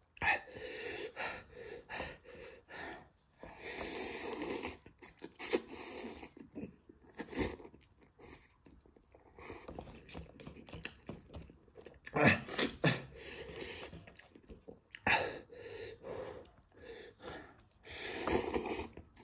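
A person eating fiery cup ramen: chewing and the clicks of a plastic fork in a paper cup, broken by sharp, noisy sniffs and heavy breaths from the chili heat, with a slurp of noodles near the end.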